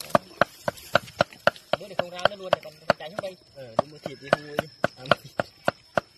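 Cleaver chopping and mincing duck meat on a chopping board, a steady run of sharp knocks about three to four a second.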